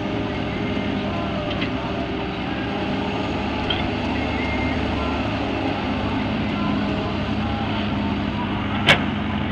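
Volvo EW130 wheeled excavator's diesel engine running steadily under working load as the machine digs soil and swings its bucket over to a tractor trolley. A single sharp knock stands out near the end.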